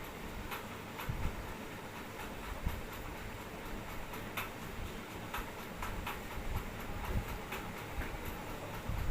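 Hands working on a person's head during a head massage: scattered light taps and clicks at an irregular pace, with a few soft low thumps, over a steady hiss.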